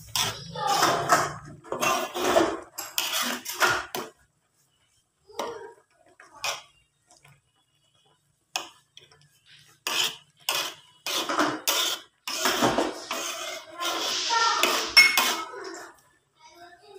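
Metal spatula scraping and knocking against a cooking pan while stirring a thick coconut-milk fish curry, in clusters of strokes over the first four seconds and again from about ten seconds in, with a quiet stretch between.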